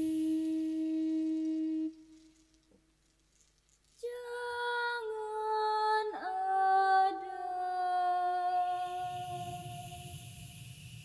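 A bamboo flute holds a long steady low note that stops about two seconds in. After a near-silent pause, voices sing a slow wordless melody that steps downward, with a quick swooping slide in the middle, fading toward the end.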